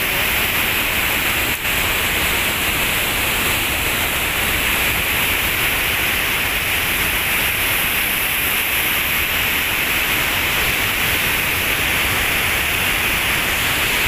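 Loud, steady rush of a large waterfall: water pouring through a dam channel past concrete walls, throwing up heavy spray.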